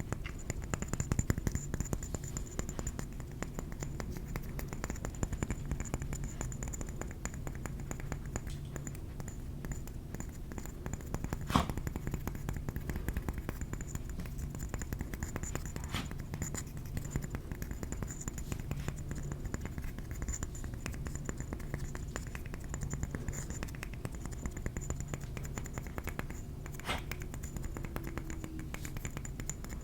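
Fingers tapping on a ceramic trinket plate: a dense run of light, quick taps, with a few sharper clicks now and then.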